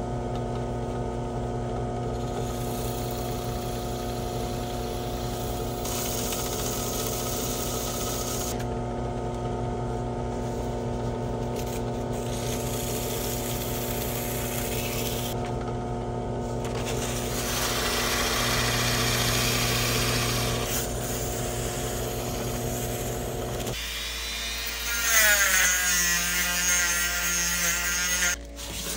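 An electric power tool's motor runs at a steady hum while metal work is pressed against it, with changing scrubbing noise that swells a few times. It stops about 24 s in. A short, louder sound with a few high steady tones follows near the end.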